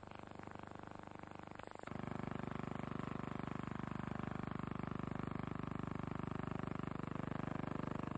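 Steady hum and hiss of a silent film's transfer, with no recorded sound of its own; the noise steps up in level about two seconds in, at a change of shot.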